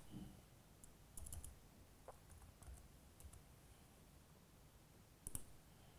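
Faint, scattered laptop keyboard keystrokes as numbers are typed in, a few irregular taps, with a slightly louder pair of keystrokes about five seconds in.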